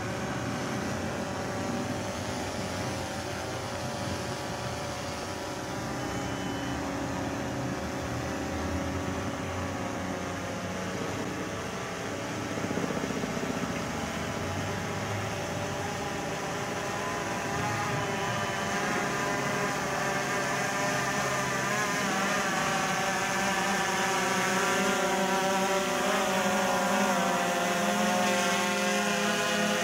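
DJI Phantom 3 Professional quadcopter's propellers buzzing with a wavering pitch as it hovers, growing louder over the second half as it comes down close overhead.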